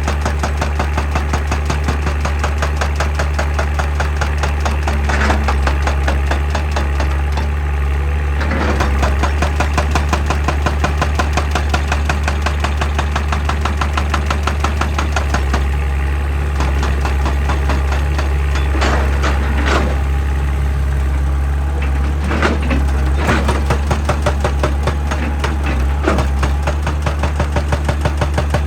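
Excavator's diesel engine running under the rapid, steady pounding of a hydraulic rock breaker on stone, with a few louder knocks.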